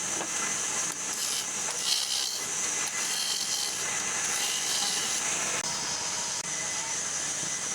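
Power tool cutting wood, a steady rasping hiss without a break.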